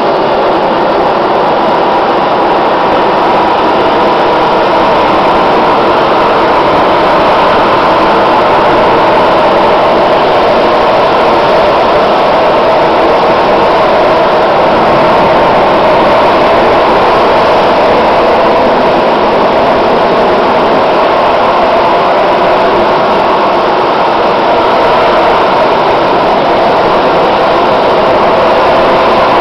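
Harrier jump jet hovering, its Rolls-Royce Pegasus turbofan running with loud, steady jet noise that holds level throughout.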